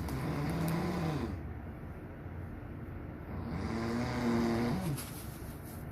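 A man snoring: two long, pitched snores, each about a second and a half, the second coming about three and a half seconds after the first.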